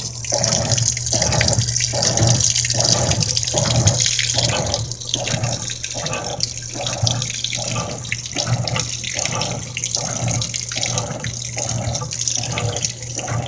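Whirlpool-built Kenmore top-loading HE washing machine agitating in regular swishing strokes, a little more than one a second, over a low motor hum while water pours in during the fill. The agitation starts before the tub has enough water to cover the load, which the owner considers wasted energy.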